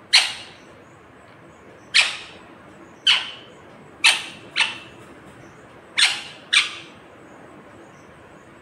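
Rose-ringed parakeet giving seven short, sharp squawks, singly and in quick pairs, spaced a second or two apart.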